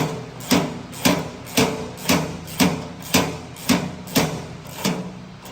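Metal being struck at a steady pace, about two knocks a second, each with a short ring, about ten in all, stopping about five seconds in.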